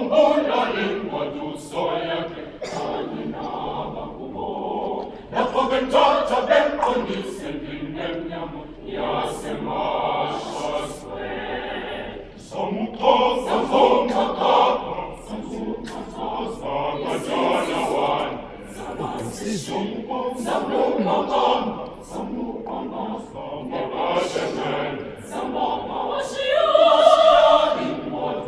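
High school choir singing, swelling to its loudest near the end.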